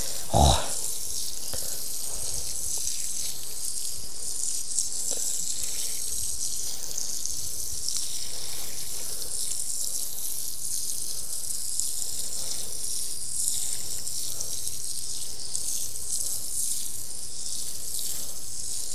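Water poured steadily onto a freshly sown vegetable bed, a continuous hiss of water running onto the soil, so it soaks in to the seeds.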